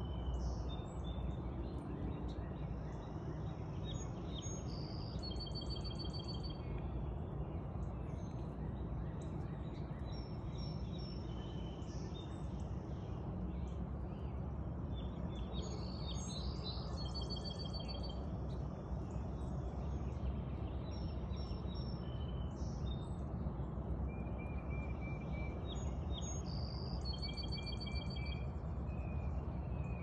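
Wild songbirds singing and chirping at a backyard feeder over a steady low outdoor rumble. One short song, a fast high trill followed by a run of clear repeated notes, comes back about every ten seconds.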